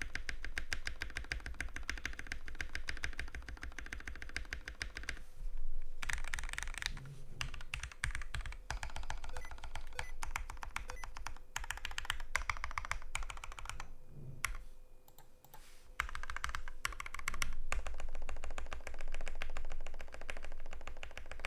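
Typing test on a custom 60% mechanical keyboard in a wooden case with a brass plate, lubed and filmed Gateron Pro 2.0 Brown switches and dye-sub 9009 keycaps: fast, continuous keystrokes with a creamy sound, broken by a couple of short pauses.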